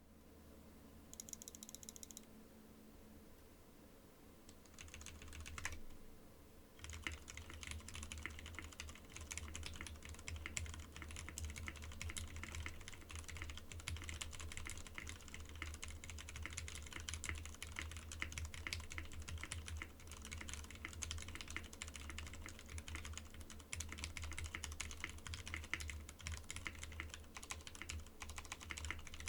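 Typing on a mechanical keyboard with an aluminium case and plate, lubed Cherry MX Hyperglide Red linear switches and doubleshot PBT keycaps. The switches are fairly quiet and poppy, with some scratchiness. A few scattered keystrokes come first, then steady fast typing from about seven seconds in.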